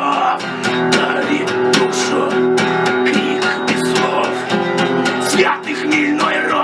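Instrumental passage of a song, led by strummed guitar, with no singing.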